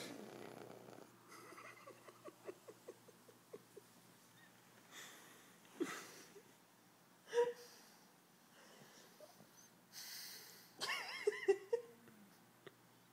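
Pug puppy snoring and wheezing in its sleep, typical of the breed's short, flat muzzle. Irregular rattling breaths and snorts, with a quick string of short rattles, about three or four a second, in the first few seconds, and a louder, wavering snort near the end.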